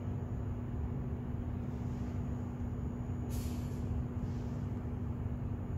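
Steady low hum and rumble inside a standing Munich U-Bahn car, likely its ventilation and on-board equipment running while it waits to depart. A short hiss of air breaks in about three seconds in.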